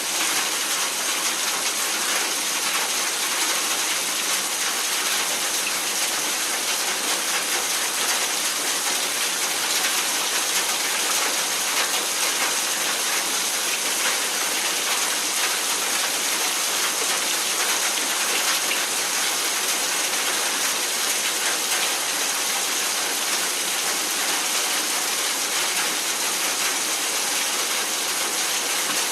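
Steady heavy rain mixed with hail striking old steel, a dense hiss of countless small, sharp hits.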